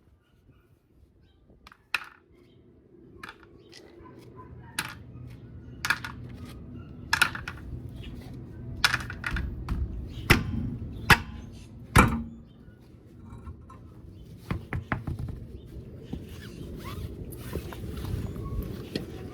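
Metal hand tools and parts clanking and knocking in a string of sharp, irregular hits, loudest near the middle, over a low steady hum that comes in about four seconds in.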